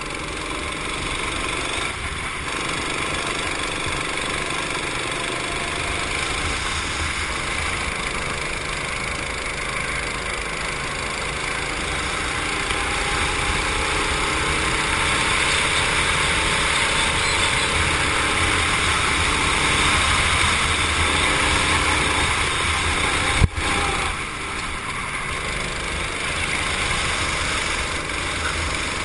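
Go-kart engine running hard at racing speed, heard from on board with a steady hiss over it; the engine note climbs gradually along a straight in the middle. About three-quarters of the way through there is one sharp knock, the loudest moment.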